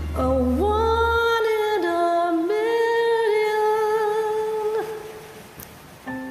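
A woman humming a slow, wordless melody in long held notes that step up and down, over the tail of a karaoke backing track. The humming fades out about five seconds in, and the music starts again near the end.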